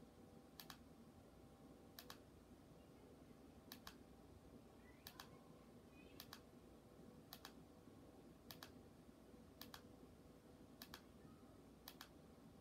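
Faint clicks of remote-control buttons being pressed to scroll a TV menu, about one press a second. Each press is a quick double click, about ten in all, over near-silent room tone with a low steady hum.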